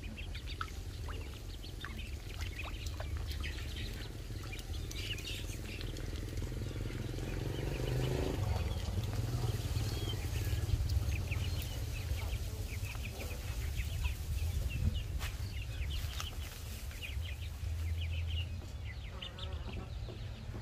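Ducklings peeping in short, high chirps throughout, over a steady low rumble. A low drone rises in pitch from about five seconds in and cuts off near eight seconds.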